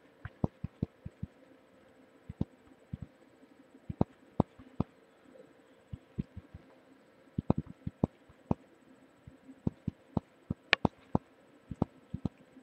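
Irregular sharp clicks and taps, some single and some in quick clusters, picked up through a webcam microphone held against the body, with a faint steady hum underneath.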